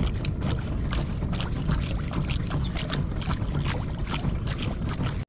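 Water slapping and splashing irregularly against the hull of a small outrigger fishing boat, over a steady low rumble.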